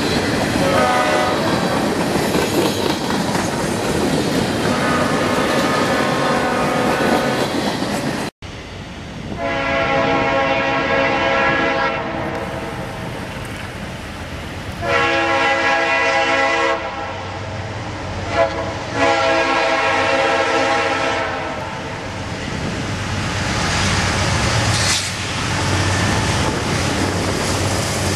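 A train passing with a steady rolling clatter and a faint horn, then, after a cut, a Norfolk Southern diesel freight locomotive approaching and blowing its horn in three long blasts, its engine rumble growing louder toward the end.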